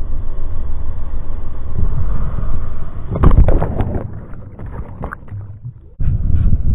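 Bass boat running at speed through rough, choppy water: wind rushing over the microphone above a steady low rumble of the hull and water. About three seconds in, a burst of spray crashes over the camera in several splashes, then dies away.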